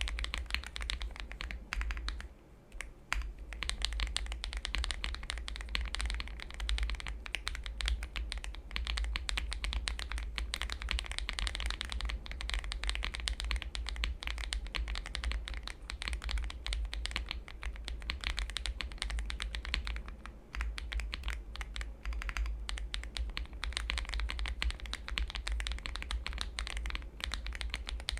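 Fast, continuous typing on an Akko Mod007 v2 mechanical keyboard with lubed Akko CS Lavender Purple tactile switches on a polycarbonate plate, with case foam and tape mod, and ASA-profile keycaps. The keystrokes run in a dense patter, with two brief pauses: one about two seconds in and one about twenty seconds in.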